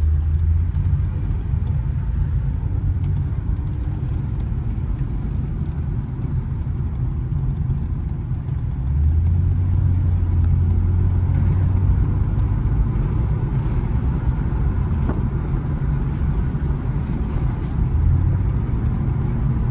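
Low steady rumble of a running car, growing stronger about halfway through and easing slightly near the end.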